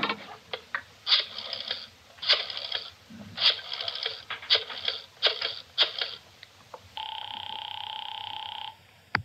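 Rotary telephone being dialed: about six spins of the dial, each a short run of clicks. Then a steady ringing tone on the line lasts nearly two seconds and stops abruptly.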